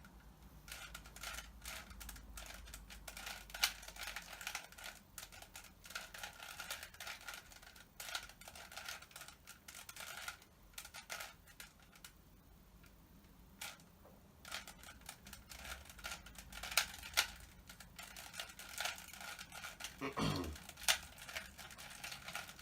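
Rubik's Cube being turned by hand: quick runs of light plastic clicking and clacking as the layers twist, with a short pause about twelve seconds in.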